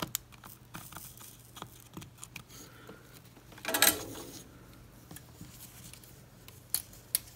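Small handling noises at a soldering bench: light clicks and taps as the soldering iron is lifted off the chip's pins and tools are moved. There is a short louder clatter about four seconds in, and two sharp clicks near the end.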